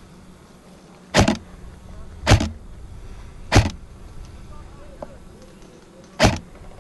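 An airsoft rifle firing four loud single shots: three about a second apart, then a last one after a pause of about two and a half seconds.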